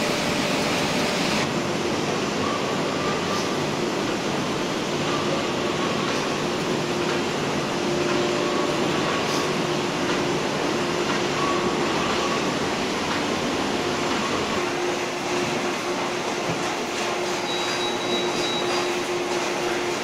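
Steady running noise of instant noodle production line machinery and conveyors: an even mechanical hum with a faint steady tone.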